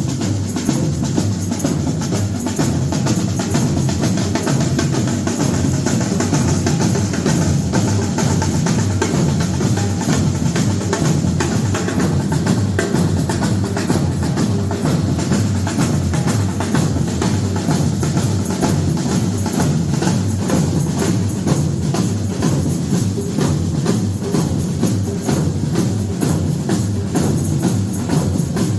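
Batucada drum group playing a steady rhythm: deep bass drums under fast, dense strokes of higher percussion.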